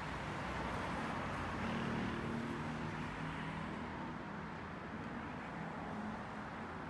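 City street traffic: vehicles driving past over a steady hum of road noise, swelling about two seconds in as one passes close and then easing off.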